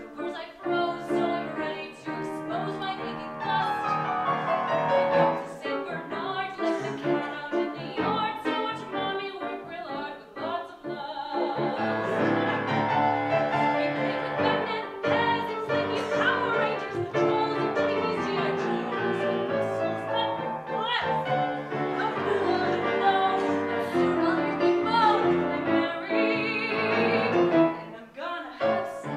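A woman singing a musical-theatre number with piano accompaniment, holding some notes with vibrato.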